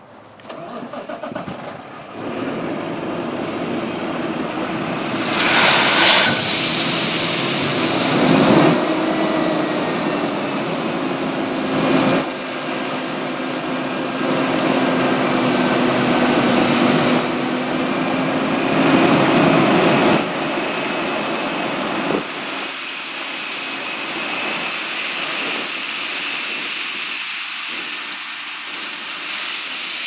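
Dump truck's diesel engine revved to drive the hydraulic hoist as the bed tips up, with a steady whine, while a load of crusher rock slides out of the bed onto the pile in a continuous rushing rumble. A loud hiss comes about six seconds in, and the sound eases somewhat after about twenty-two seconds.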